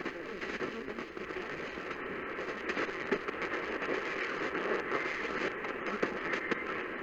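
Radio reception static: a steady hiss with frequent small crackles.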